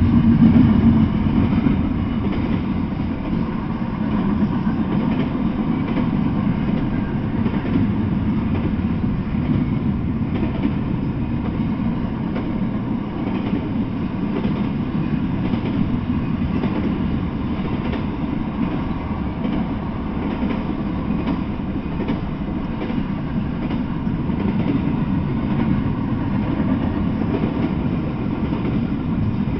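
Double-stack intermodal freight train rolling past, its steel wheels running steadily on the rails, a little louder in the first couple of seconds.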